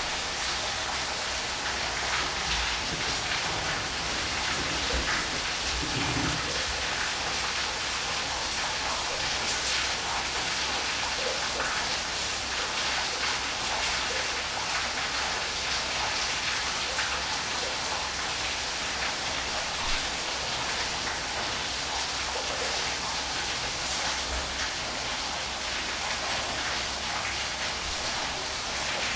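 Waterfall: a steady, even rush of falling water with no break or rhythm.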